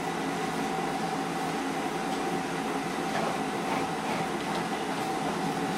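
A steady machine hum with a constant whine over an even hiss.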